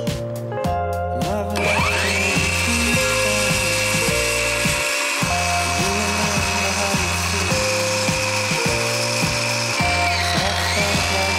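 Circular saw running and cutting through a 2x8 pine board, a steady whine that sets in about a second and a half in, dips briefly near the end and picks up again, under background music.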